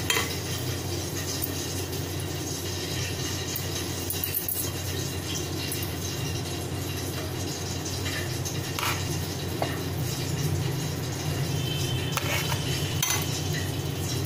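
Thick batter being scooped by hand into a stainless steel sev press cylinder: a few short, soft clinks and scrapes of the metal tube against the glass bowl and wet batter, scattered over a steady low hum.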